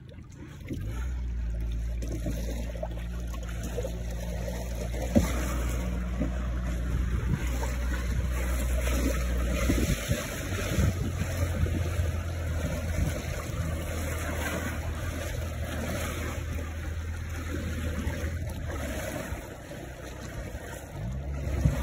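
A small boat's motor comes up about a second in and runs steadily, with water rushing and sloshing along the hull. It eases off near the end.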